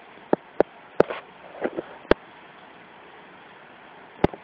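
Electric sparks snapping at a homemade high-voltage sunglasses gadget: about five sharp, irregularly spaced cracks over a faint hiss.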